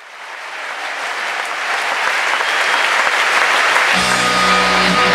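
Large concert crowd applauding and cheering, fading in. About four seconds in, the band comes in with sustained held chords and a low bass note.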